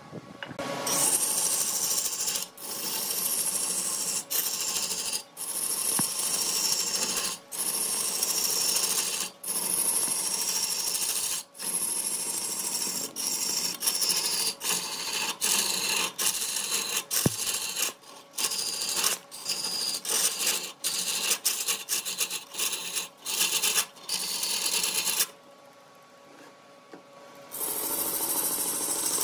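Turning tool scraping and cutting into wood spinning on a lathe, in passes broken by short pauses every second or two, with a longer lull near the end.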